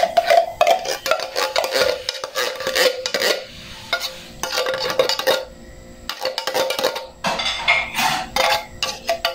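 Metal spoon scraping and clinking inside a tin can, in three bursts with short pauses, with a ringing metallic note under the scrapes.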